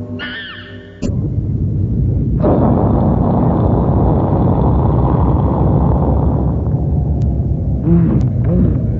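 Cartoon sound effects: a sudden loud low rumble cuts in about a second in and holds, joined by a wide hissing roar from about two and a half seconds that fades off later. Short tones sweep up and down near the end.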